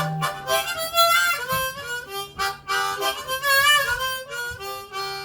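Short instrumental music interlude: a melody of changing notes over a regular beat.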